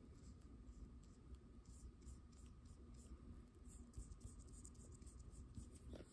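Faint scratching of a small paintbrush stroking acrylic paint onto paper, several short strokes in a row, over a faint steady hum.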